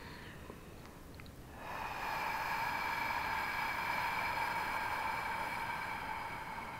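A woman's slow breath out through the mouth: a steady breathy hiss that starts about two seconds in and lasts about five seconds, after the tail of the previous exhale and a quieter in-breath.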